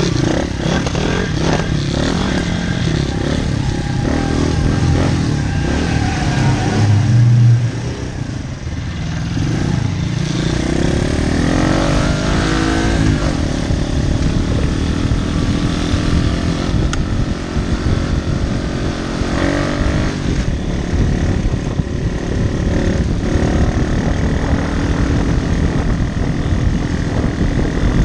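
Single-cylinder four-stroke pit bike engine being ridden hard on a dirt trail, its revs rising and falling continuously. It is loudest about seven seconds in, eases off briefly just after, then climbs again.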